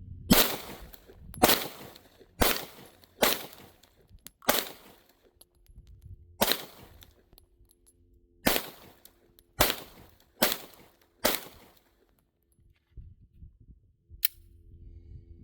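Glock 43X 9mm subcompact pistol firing about ten single shots at an unhurried, uneven pace, roughly one a second with a couple of longer pauses. A fainter sharp crack follows near the end.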